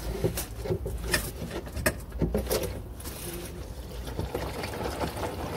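Drain plug of a Mercedes Sprinter 313's manual gearbox being unscrewed by hand, with a few light clicks and knocks, then gear oil pouring out of the drain hole into a plastic jug as a steady splashing stream from about three and a half seconds in.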